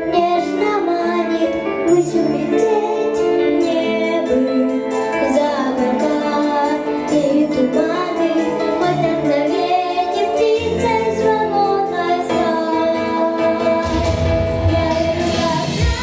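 A boy singing a song into a handheld microphone over a backing track. The bass comes in about ten seconds in, and the backing grows fuller near the end.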